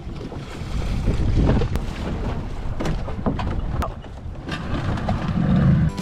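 Wind buffeting the microphone over a rushing of water and boat noise, with a few sharp knocks.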